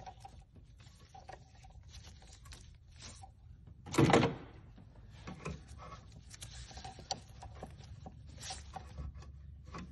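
Small clicks and rattles of parts being handled while a fuel line is fitted into the clips on its bracket, with one much louder clunk about four seconds in.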